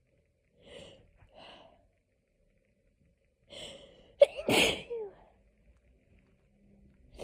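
A person sneezing from hay fever: a few short, softer sounds build up to one loud sneeze about four and a half seconds in.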